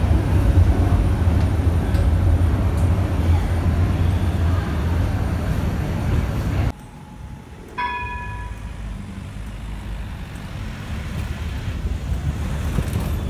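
Tram rumbling past close by in an underground station, a loud low rumble. After a cut, a single bell stroke rings out, likely the tram's warning bell, and fades within about a second, over steady street traffic with a tram running on street track.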